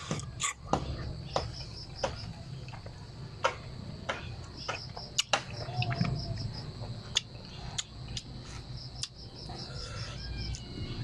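Wet mouth clicks and smacks, repeated every second or so, from someone chewing and sucking the pulp of santol fruit. Crickets chirp steadily in the background.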